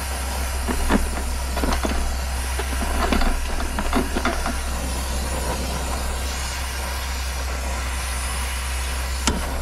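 Brazing torch flame hissing steadily as it heats a brazed copper refrigerant-line joint on an air-conditioner scroll compressor to unsweat it. Scattered light metallic clicks and knocks come from pliers working the copper line, mostly in the first half, with one sharp click near the end.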